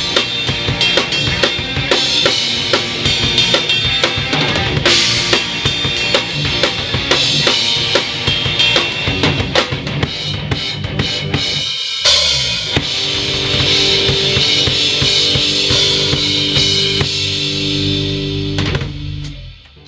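Rock band playing at full volume, with the drum kit loud and close: kick, snare and cymbals over distorted guitars and bass. The band stops for a moment about twelve seconds in, comes back on a crash with a held, ringing chord, and the sound dies away near the end as the song finishes.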